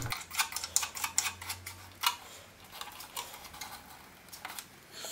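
Light, irregular clicks and taps of small parts being handled as a circuit breaker's retaining nut is worked onto its threaded end through a mini lathe's thin plastic control box cover. The clicks are busiest in the first two seconds and sparser after.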